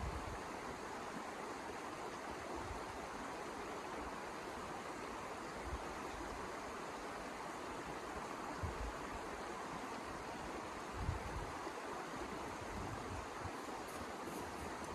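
Steady rushing of snowstorm wind, with a few short low thumps where gusts buffet the microphone.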